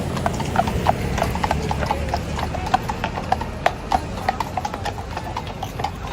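Horses' hooves clip-clopping on hard ground at a walk, an irregular run of sharp strikes several times a second.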